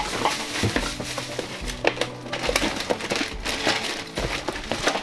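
Objects being rummaged and handled, with dense crinkling and clattering throughout, over background music with a steady low beat.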